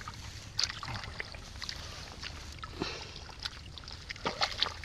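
A spade cutting into hard, wet mud, making scattered short knocks and scrapes, with some water sloshing and trickling.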